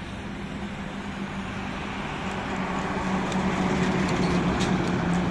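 Heavy articulated truck with an empty flatbed trailer driving past close by: a steady diesel engine hum and tyre noise that grow louder as it approaches. A few light clicks come about three to five seconds in.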